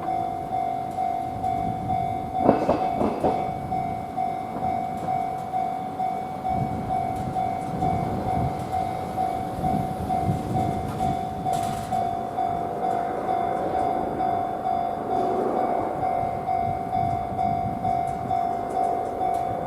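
Japanese level-crossing warning bell ringing its fast, even 'kan-kan' over a tram of the Hiroshima Electric Railway rumbling along the rails, with a short loud sound about two and a half seconds in.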